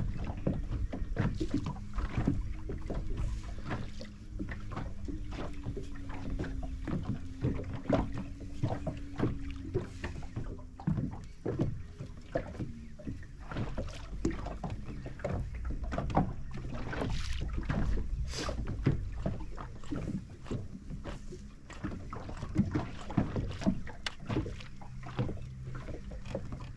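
Water lapping against the hull of a rigid inflatable boat, an irregular run of light slaps and knocks over a low steady hum.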